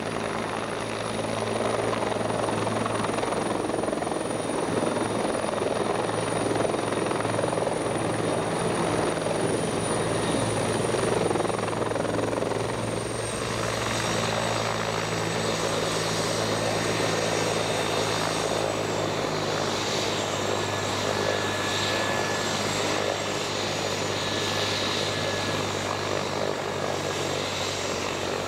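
Rescue helicopter landing: steady rotor noise with a high, thin turbine whine over it. The whine steps down in pitch about halfway through and again about two-thirds of the way through as the helicopter settles on the pad.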